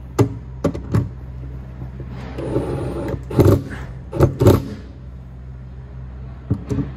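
Cordless drill/driver tightening the screws of a garbage disposal's mounting ring up against the sink flange, running in short spells with several sharp knocks of metal parts; the louder stretch comes in the middle.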